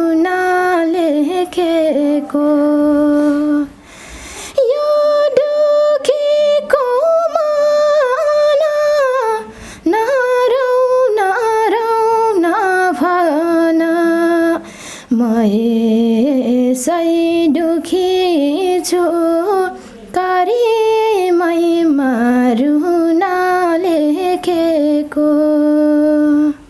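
A young woman singing a sorrowful Nepali song unaccompanied, in long held notes with a slight waver, in five phrases broken by short breath pauses.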